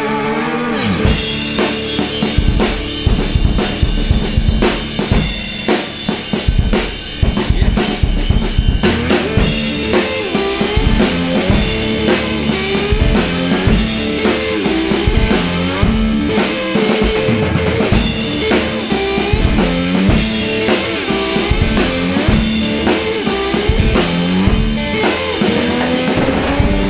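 Guitar and drum kit playing an instrumental passage of a blues-rock song, with steady bass drum and snare hits under guitar notes that bend in pitch.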